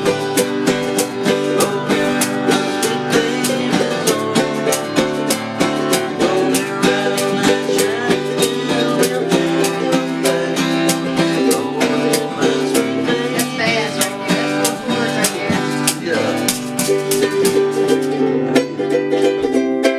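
Acoustic plucked-string instruments playing a tune together, strummed and picked to a steady beat. Near the end the lowest parts drop out.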